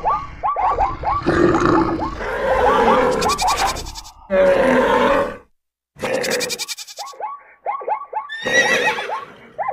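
Mixed animal call sound effects: runs of quick, short cries that fall in pitch, several a second, over a noisy bed, breaking off into a brief silence about five and a half seconds in.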